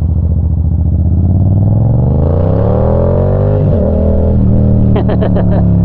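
Yamaha FZ-07's 689 cc parallel-twin engine under acceleration: the revs climb for about a second and a half, drop sharply at a gear change, then the engine pulls on at a steadier note.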